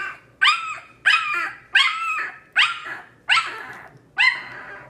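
A two-week-old golden retriever–Rottweiler mix puppy crying: a steady string of about six high, yelping cries, each rising then falling in pitch, roughly one a second.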